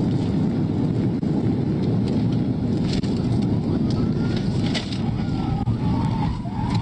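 Steady engine and road noise of a police patrol car driving fast in a pursuit, recorded by its dashcam. A siren wail comes in faintly, rising and falling, in the second half.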